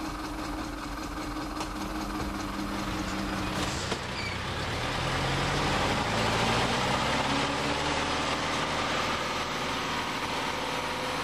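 Heavy cab-over truck engine running steadily. About four seconds in it revs up, its pitch rising and growing louder as the loaded truck pulls away, then settles a little.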